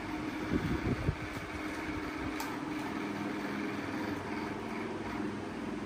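A steady mechanical hum with a few held low tones, and several short low knocks about half a second to a second in.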